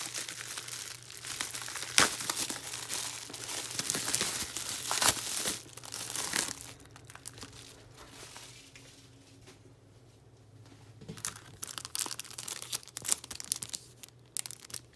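Plastic packaging crinkling and crackling as it is handled and opened, with sharp cracks about two and five seconds in. It goes quieter for a few seconds in the middle, then crinkles again near the end.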